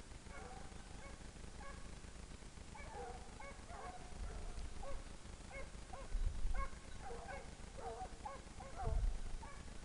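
Scent hounds baying in the woods, short repeated cries coming thick and fast as they give tongue on a wild boar's trail. Two low thumps of handling noise on the microphone, about six and nine seconds in, are the loudest sounds.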